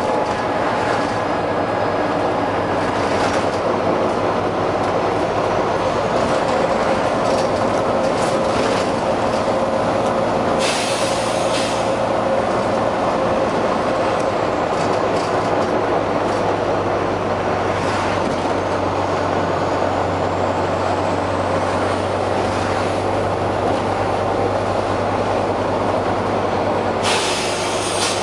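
Volvo B9TL double-decker bus running, its six-cylinder diesel giving a steady drone with a faint whine. Twice, about 11 seconds in and near the end, a short burst of air hiss from its air system cuts in.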